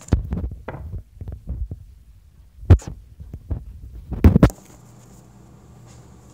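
Handling noise from the camera being picked up and repositioned: fingers rubbing and bumping right on the microphone in a string of dull low thumps, loudest twice, at about two and a half seconds and just after four seconds. Then it settles to a faint steady hum.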